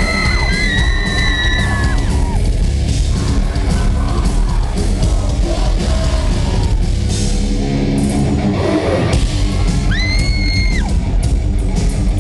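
Heavy rock band playing loud and live, with high-pitched screams over the music twice: at the start and again about ten seconds in.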